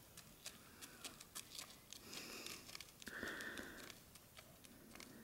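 Near silence, with faint scattered clicks and a brief soft hiss a little past the middle.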